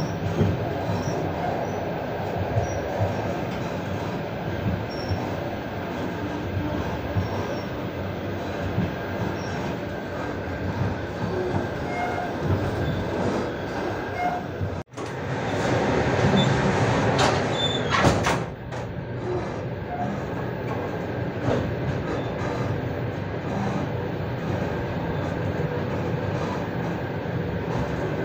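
Running noise of a passenger train heard from inside a carriage: a steady rumble of wheels on rail while a container freight train passes on the next track. About halfway through the sound cuts out for an instant. It then grows louder for a few seconds, with a few sharp clanks.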